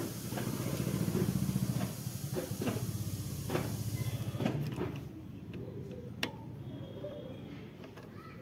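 Short metal clicks and taps from fitting a speedometer cable into the front wheel hub's drive, over a steady low rumble and hiss that stops about four and a half seconds in. One sharp click comes about six seconds in.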